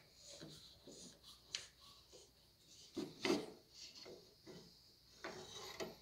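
Plastic deadbolt drilling jig being handled and pulled off the edge of a wooden door: irregular scraping and knocking of plastic against wood, loudest about three seconds in.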